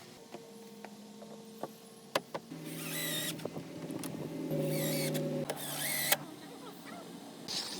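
A cordless power drill or driver runs in two short bursts of about a second each, as when driving screws while fastening composite deck boards. A few sharp clicks and taps fall between the bursts over a faint steady hum.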